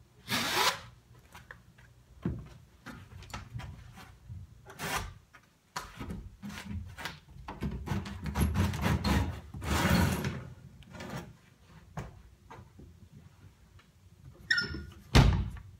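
Carpet knife cutting and scraping through the carpet backing along the wall, with the carpet rustling and dragging as it is handled, in irregular scratchy strokes. Near the end a door creaks briefly and knocks.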